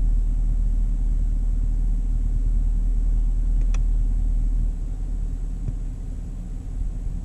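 2016 Camaro SS's 6.2-litre LT1 V8 idling through its NPP dual-mode exhaust, heard from inside the cabin. A little past halfway the deep exhaust rumble drops noticeably in level as the car changes into snow-and-ice mode and the exhaust flaps close.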